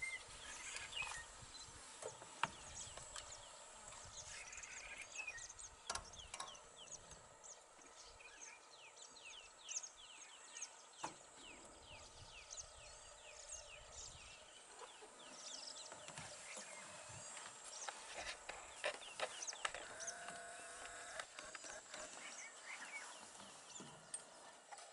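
Faint birds chirping and calling, many short downward-sweeping high notes, over a steady thin high hum, with a few sharp clicks.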